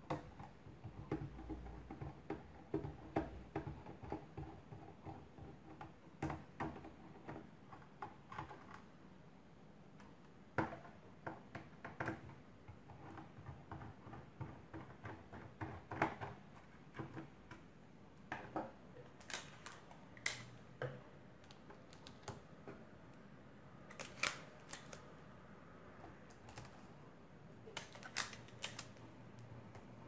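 Small irregular clicks and taps of a precision screwdriver working screws out of a laptop's metal chassis, with a few sharper clusters of clicks later on.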